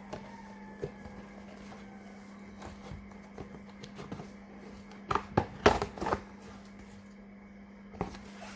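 Scattered clicks, then a short burst of knocks and clatter about five seconds in, over a steady low hum.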